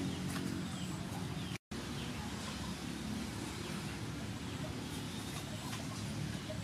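Wet handling of frog meat in a metal bowl, with small splashes and clicks over a low steady background hum. Birds call outdoors, and the sound drops out briefly about one and a half seconds in.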